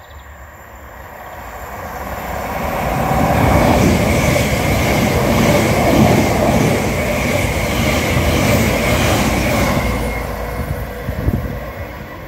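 Greater Anglia electric multiple unit running past along the platform: the rumble of wheels on rail builds over the first few seconds, holds with a thin steady high whine, then eases off near the end.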